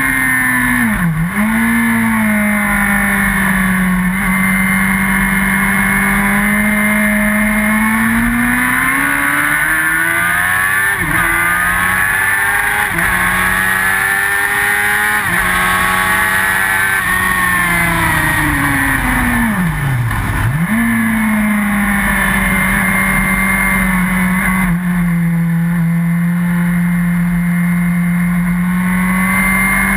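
Yamaha R1's inline-four engine at racing speed, heard from onboard. The revs climb in several rising sweeps through the middle, then fall off. Twice, about a second in and about two-thirds of the way through, the pitch plunges sharply and comes straight back up.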